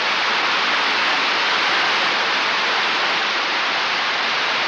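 Water of the Trevi Fountain cascading in a steady rush.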